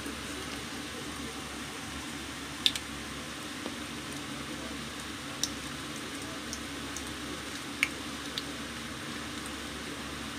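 Breaded potato croquettes deep-frying in hot oil, now golden brown: a steady sizzling hiss, with a few sharp clicks scattered through it.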